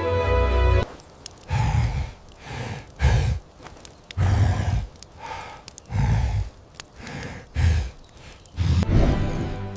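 Heavy, slow breathing: about six deep, rasping breaths in and out, each lasting roughly half a second to a second.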